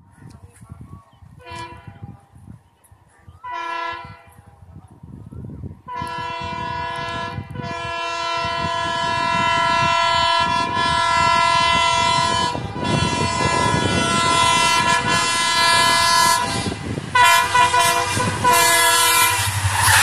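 WDP-4 diesel locomotive's air horn sounding two short blasts, then a long blast held with brief breaks, then two more short blasts, as the express train approaches at speed. The rumble of the train grows louder until it runs past.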